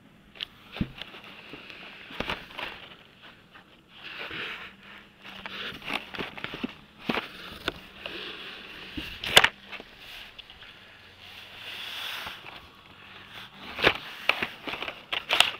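Carded Hot Wheels cars in plastic blister packs being flipped through in a cardboard box: irregular plastic clacks and clicks, with rustling of the card backs between them.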